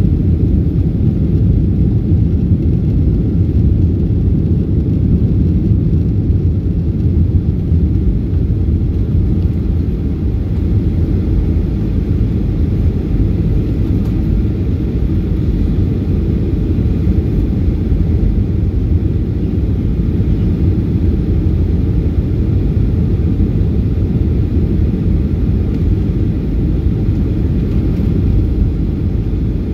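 Steady, deep cabin rumble inside a Boeing 737-800 in flight: the drone of its CFM56-7B engines and the rush of air past the fuselage, heard from a window seat.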